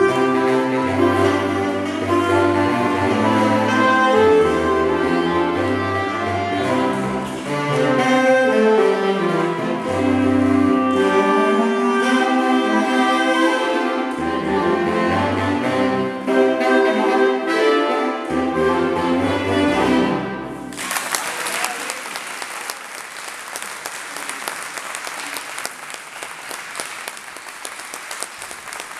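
Saxophone quartet of soprano, alto, tenor and baritone saxophones playing, the baritone carrying a stepping bass line, ending on a held chord. About two-thirds of the way through the music stops and the audience breaks into applause.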